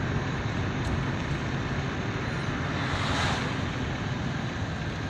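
Steady road and engine noise of a car driving, heard from inside the moving car, with a brief swell of hiss about three seconds in.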